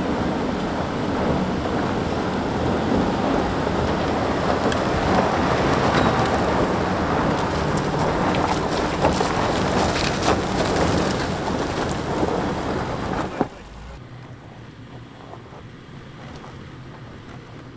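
Range Rover L322 engine working hard as the SUV climbs out of a rocky rut, tyres scrabbling on loose gravel and spraying stones, in a loud rumbling roar of noise with sharp stone knocks. About thirteen seconds in it cuts off suddenly to a much quieter, distant SUV engine as a Toyota 4Runner crawls down the rocky trail.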